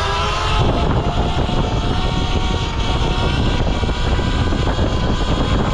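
Electric dirt bike motor whining steadily under way, with wind rumbling heavily on the microphone.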